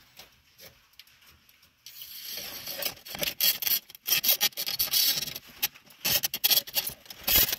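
Choke cable rubbing and scraping as it is pushed through a small hole in the dash panel. It starts about two seconds in as dense, irregular scratching.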